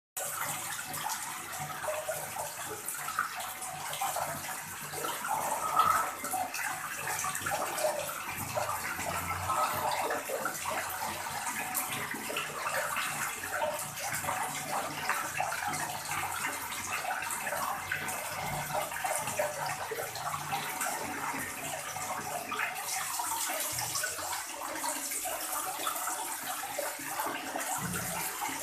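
A steady stream of water pouring into a plastic tub already full of water, splashing and churning the surface, briefly louder about six seconds in.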